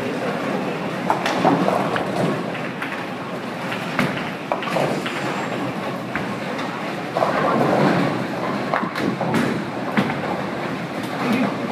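Bowling alley din: balls rolling down the wooden lanes with a steady rumble, broken by sharp knocks of pins and balls, under people talking.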